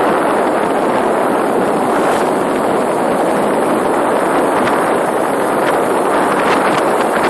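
Small brush-cutter engine driving a motorised bicycle, running steadily as the bike is ridden.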